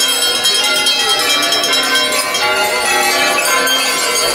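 Many bells ringing together at once, a continuous jangle of overlapping tones, with voices underneath.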